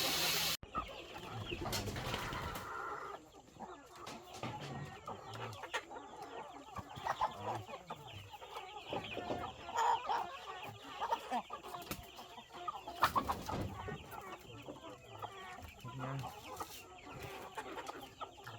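Chickens clucking in short, irregular calls, with a brief rustle about two seconds in.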